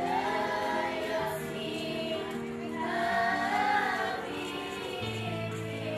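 Music: a sung melody over held accompaniment chords, with a deeper bass note entering about five seconds in.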